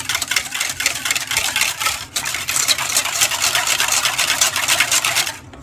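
Wire balloon whisk beating egg and buttermilk in a stainless steel bowl: rapid, even whisking strokes with a brief break about two seconds in, stopping just before the end.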